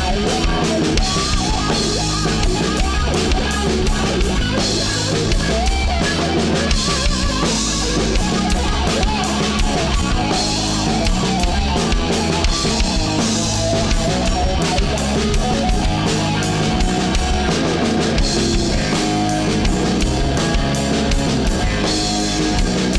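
Live rock band playing: double-neck electric guitar, electric bass and drum kit, loud and continuous.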